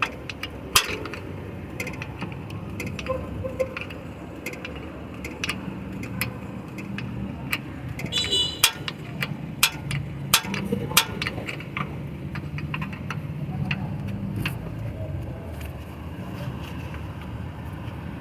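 Irregular sharp metallic clicks and clinks of a spanner and screwdriver on the nut and clutch plate of a car's air-conditioning compressor pulley as the nut is worked off, one clink ringing briefly about eight and a half seconds in, over a steady low rumble.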